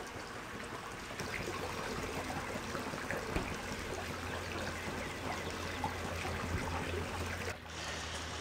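Steady trickling of running water in a backyard swimming pool, dipping briefly near the end.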